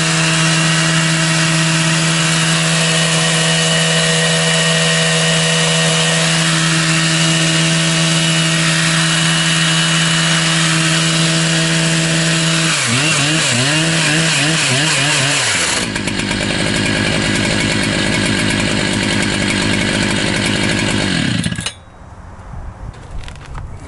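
Husqvarna 3120 chainsaw (118 cc, four-foot bar) at full throttle, ripping lengthwise through a white pine round. Its engine holds a steady high pitch, wavers about 13 seconds in, changes to a rougher sound about 16 seconds in, and cuts off abruptly near the end.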